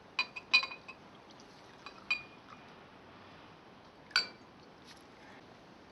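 Tableware clinking lightly as it is handled, each clink leaving a short ringing tone. There are three clinks in the first second, two more around two seconds, and a sharper one about four seconds in.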